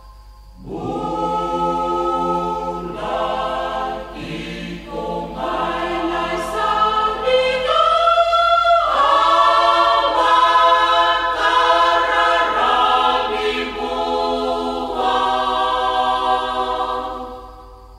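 Choir singing a slow hymn in long held chords. A phrase starts just after the beginning, swells through the middle and fades away near the end.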